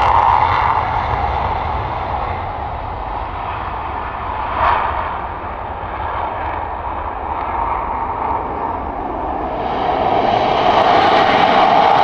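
F-35A fighter's single jet engine running as the aircraft taxies, a steady rushing noise that eases off in the middle and swells again near the end. One short louder burst comes about four and a half seconds in.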